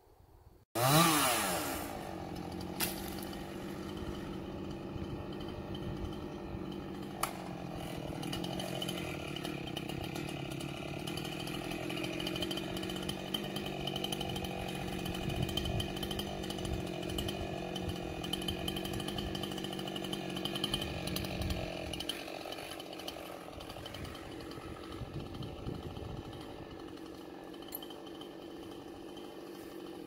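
Chainsaw high up a limbed pine trunk, starting suddenly with a rising rev about a second in, then running steadily at high revs. Its pitch shifts a little about two-thirds of the way through.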